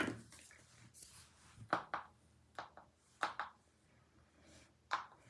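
A handful of short plastic clicks and taps from handling a small bottle of facial cleanser, the loudest at the start.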